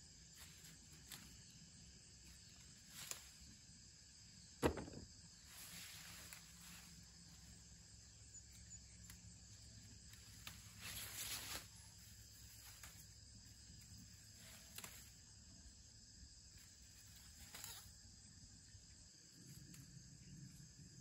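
Faint rustling of bean vines and leaves as beans are picked by hand, with scattered short clicks and one sharp click about four and a half seconds in. Insects chirr steadily in the background.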